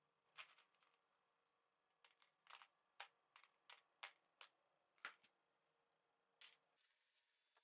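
Steel paper clips and pushpins clicking and clinking against each other and a plastic tray as a magnetized screwdriver tip stirs and lifts them; about a dozen light, sharp clicks at uneven intervals.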